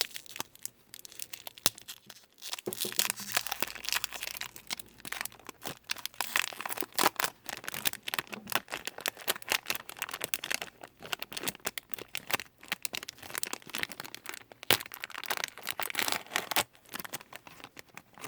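A 1993 Topps Series 1 baseball card pack being torn open, its wrapper crinkling, with cards handled and shuffled. The sound is a steady run of crackles and small snaps.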